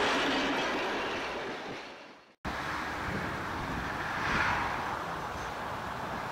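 Vintage steel passenger carriages rolling away along the track, their wheel-on-rail noise fading out over about two seconds. Then wind buffeting the microphone, swelling briefly about four seconds in.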